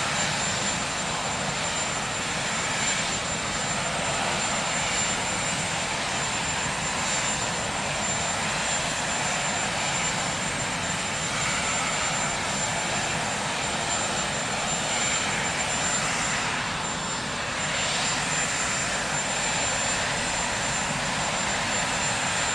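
Marine One, a Sikorsky VH-3D Sea King helicopter, with its turbine engines running on the ground: a steady rushing noise under a constant high-pitched whine.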